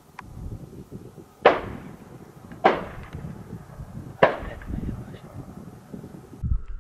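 Three gunshots, each followed by a short echo, the second about a second after the first and the third about a second and a half later, over low wind rumble on the microphone.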